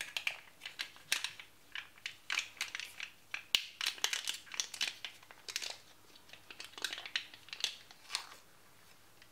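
Foil stock-cube wrapper crinkling in irregular clusters of sharp crackles as it is unwrapped.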